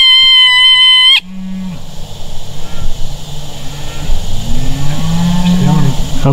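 A coyote howl from a predator call, held at one steady pitch, cuts off abruptly about a second in. Quieter low-pitched calls that rise and fall follow.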